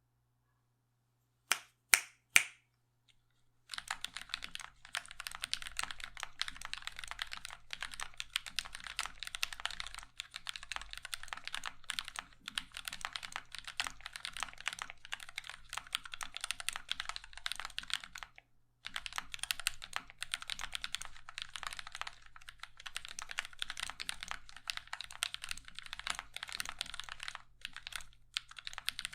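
Three sharp clicks, then fast continuous typing on a Prime_E 40% mechanical keyboard with lubed linear switches (UHMWPE stems in Cherry MX housings, 65g springs), ABS blank keycaps and an acrylic plate. The keystrokes have a bit more clack than thock, with one short pause midway.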